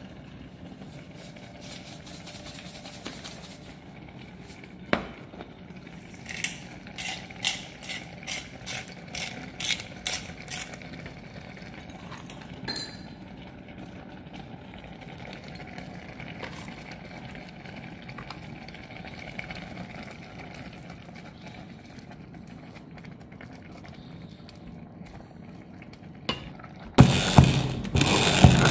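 Low steady kitchen hum with a run of about ten short scratchy strikes, roughly two a second, as seasoning goes into the pan. Near the end a hand-held immersion blender switches on loudly in the pot of nettle and onion soup.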